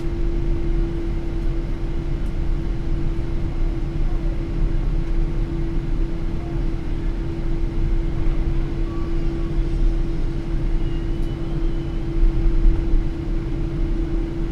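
Cabin noise of a Boeing 777-300 taxiing after landing: a steady low rumble of the idling engines with a constant hum.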